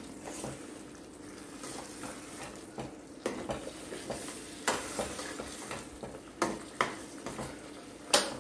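Steel ladle stirring thick vada curry in a stainless steel kadai over a steady low simmer, with a handful of sharp clinks as the ladle hits the pan; the loudest clink comes near the end.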